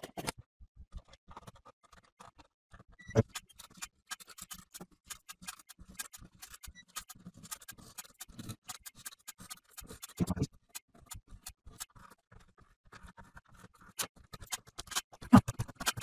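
Light clicks and scratches of small metal parts and the mixer's casing being handled during disassembly, with a few louder knocks about three seconds in, about ten seconds in, and shortly before the end.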